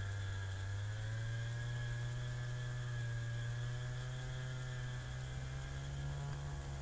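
An engine running steadily, its pitch stepping up slightly about a second in and again near the end.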